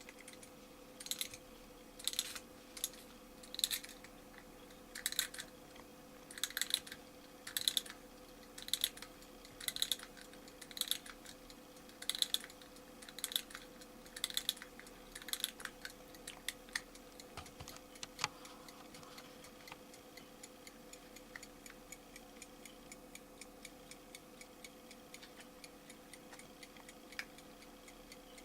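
Mechanical alarm clock being wound by hand: short bursts of ratcheting clicks about once a second for some fifteen seconds. After that the clock's movement ticks faintly.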